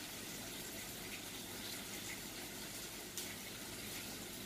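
Steady, low sizzle of onions frying in oil in a pan. A few light clicks come over it as steamed idlis are pried off a plastic idli-maker plate.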